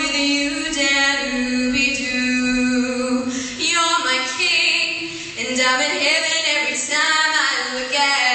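Solo female voice singing a cappella through a microphone, with no accompaniment. A long held note comes first, then the melody moves through shorter notes.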